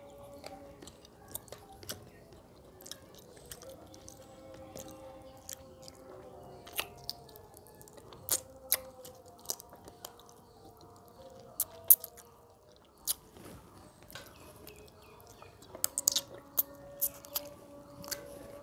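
Close-up eating sounds of a person eating fish curry and rice by hand: chewing, lip smacks and sharp wet mouth clicks at irregular intervals, with a cluster of clicks near the end. Soft background music plays underneath.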